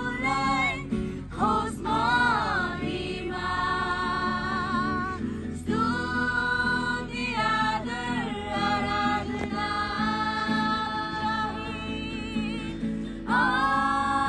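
A mixed group of young men and women singing a song together in long held phrases, accompanied by an acoustic guitar.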